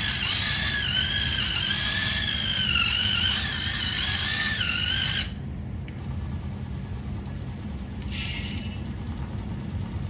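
Small electric motors and gears of a DieCast Masters CAT 297D2 RC skid steer whining high, wavering in pitch, then cutting off about five seconds in. A quieter low hum continues, with a brief hiss about eight seconds in.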